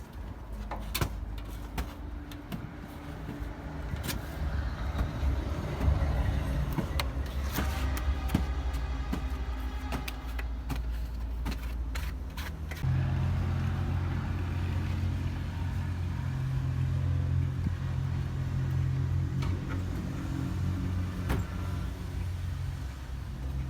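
A steady low motor or engine hum that gets louder and heavier about thirteen seconds in, with scattered clicks and knocks over it.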